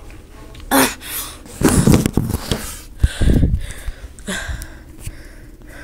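Handling noise from a phone being picked up and moved: rubbing and bumps against its microphone, with a sharp knock about a second in, two loud rumbling scuffs, and a few lighter knocks near the end.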